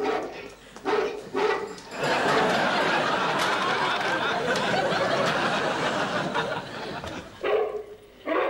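A few short dog barks played from a tape recording. About two seconds in, a studio audience starts laughing and keeps it up for about five seconds before it fades.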